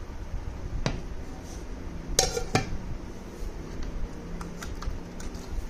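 Kitchen utensils and containers clinking and knocking on a countertop: a single click about a second in, a loud cluster of sharp clinks about two seconds in, then a few lighter taps near the end.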